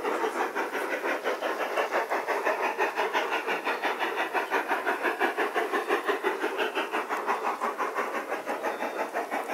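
Large-scale garden model steam locomotive chuffing steadily as it runs, a rapid, even beat of chuffs with a steam hiss.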